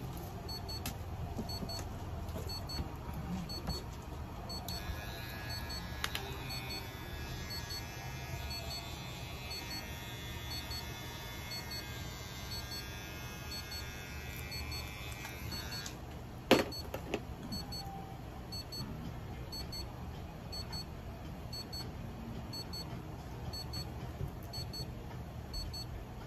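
A small electric clipper for trimming the hair on a cat's paw pads whines steadily from about five seconds in to about sixteen seconds, then stops. Just after it stops comes one sharp click, the loudest sound here. Faint electronic double beeps repeat about once a second throughout.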